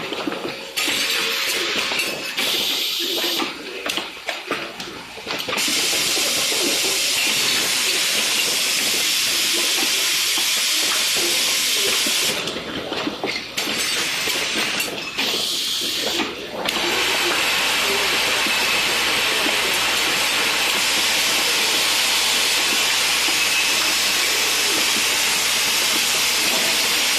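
A loud, steady hiss like rushing air, in long stretches broken by short pauses about 4, 13 and 16 seconds in.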